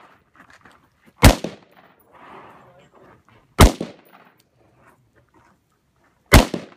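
Three single gunshots a little over two seconds apart, each a sharp crack with a short ring-out after it.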